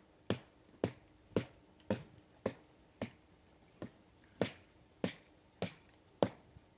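Steady rhythmic knocking, a little under two sharp knocks a second, evenly spaced, some knocks louder than others.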